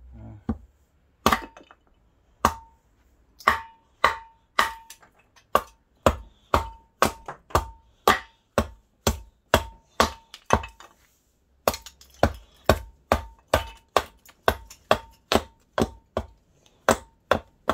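A big knife chopping down into a short log section to split it: about thirty sharp strikes, roughly two a second, each followed by a brief ringing tone. There is a short pause about two-thirds of the way through.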